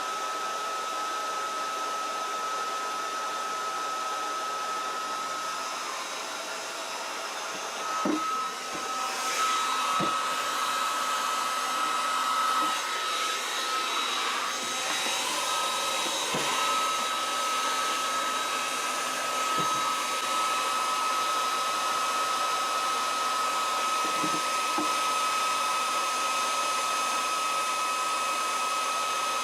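Steady hissing rush of a hot-air heat source with a constant whistling tone, heating heat-shrink tubing on wire. A few light knocks of handling come from about eight seconds in.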